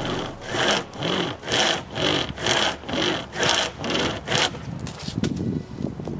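A loose chainsaw chain pulled back and forth by two wooden stick handles, its cutters rasping into a small tree trunk at about two strokes a second. The strokes stop about four and a half seconds in, leaving lower scuffing and rustling.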